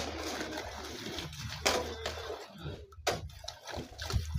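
Concrete being mixed by hand: a hoe scrapes and chops through a pile of gravel and cement, with sharp strikes about a second and a half in and again about three seconds in. Near the end, water splashes onto the mix from a jerrycan.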